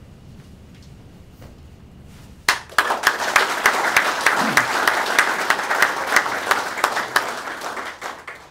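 Audience applauding, starting suddenly about two and a half seconds in after a quiet stretch, then dying away near the end.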